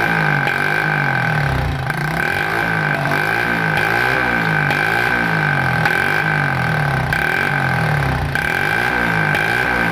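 Hero Passion Pro motorcycle's single-cylinder engine idling steadily, with a steady high-pitched tone over it and no exhaust pops.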